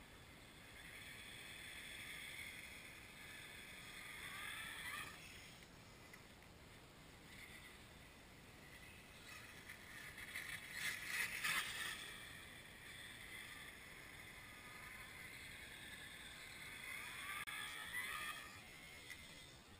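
Brushless electric motor and geared drivetrain of an Axial Wraith RC rock crawler whining as it drives, the pitch rising and falling with the throttle several times. A louder, rough patch of noise comes about halfway through.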